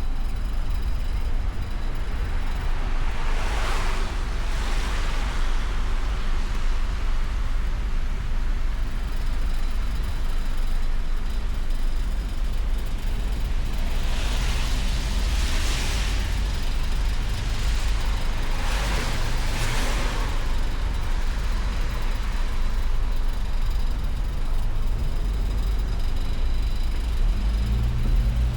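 Car driving on a snowy road: a steady low rumble of road and wind noise, with a tyre hiss swelling and fading three times as other vehicles pass, a few seconds in, about halfway and again shortly after.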